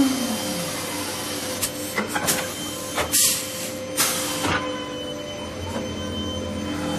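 Automatic CNC wood lathe running with a steady machine hum. A whine falls in pitch at the start, then a string of sharp clacks and knocks comes through the middle.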